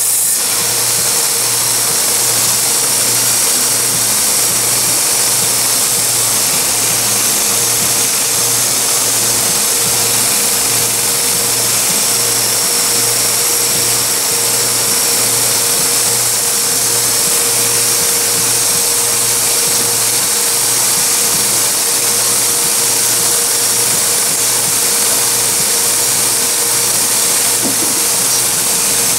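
Small bench belt grinder running steadily while knife handles are ground on its sanding belt: an even hiss with a steady whine and a low hum that pulses a little more than once a second.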